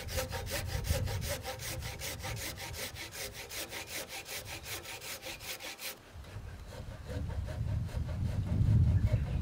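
Japanese handsaw cross-cutting an old chestnut beam in rapid, even strokes. About six seconds in the strokes turn much softer and a low rumble comes up.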